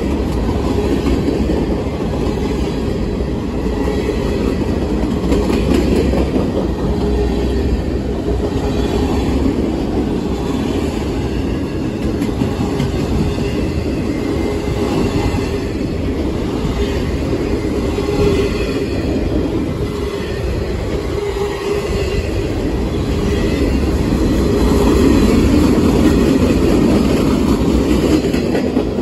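A long freight train's cars (covered hoppers, autoracks and tank cars) rolling past close by, their steel wheels on the rails making a continuous heavy rumble that swells a little near the end.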